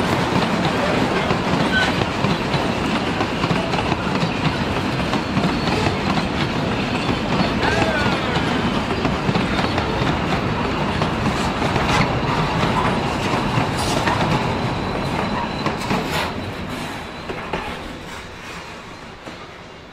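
Puffing Billy narrow-gauge steam train rolling past, its wheels clattering on the rails with a little wheel squeal. It fades away over the last few seconds.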